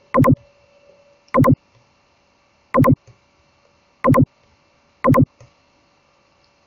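Computer mouse clicking five times, about one click every second or so, each click short, sharp and loud.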